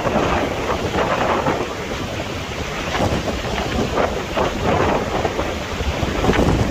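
Hurricane Ian's storm wind gusting hard against the microphone, over a steady rush of rain.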